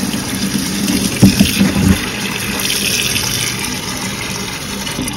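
Tap water running steadily into a metal pot of fresh corn cobs, filling it for boiling. A few knocks sound a little over a second in.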